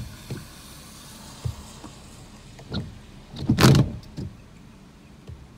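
Gusty wind buffeting the phone's microphone: a steady rush broken by short bumps, with the strongest gust about three and a half seconds in.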